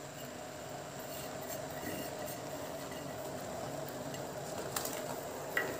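Steady rushing of a gas stove burner heating a pan of harira, with a couple of light clicks near the end.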